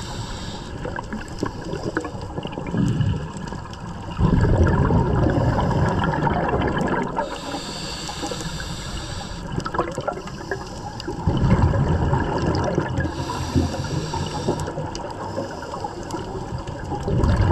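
Scuba diver breathing through a demand regulator underwater: slow breaths, each a hissing inhalation followed by a longer low rumble of exhaled bubbles, about three cycles.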